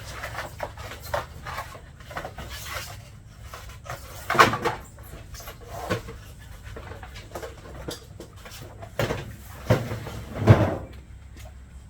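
Scattered knocks, bumps and clatter of objects being handled and set down, with a louder thump about four seconds in and two more near the end.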